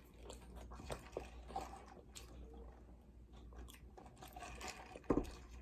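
A person chewing and biting food close to the microphone, likely fried chicken and glazed donut: faint, scattered soft crunches and wet mouth clicks.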